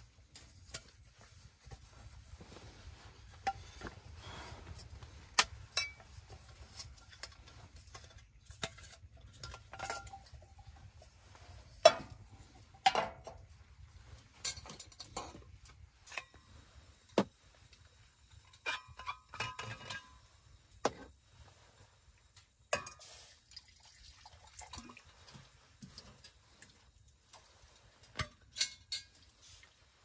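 Metal camping cups, flask and cookware being handled: scattered clinks, taps and knocks, with a busier stretch of scraping and ringing around the middle.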